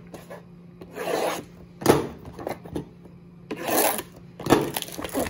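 A cardboard retail blaster box of hockey cards being opened and handled: about four short, rasping scrapes of cardboard rubbing and sliding, spaced over a few seconds.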